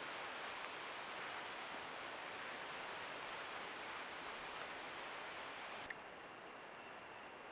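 Steady hiss of outdoor background picked up by a trail camera's microphone, with no animal calls. A single click comes near the end, after which the hiss is slightly quieter.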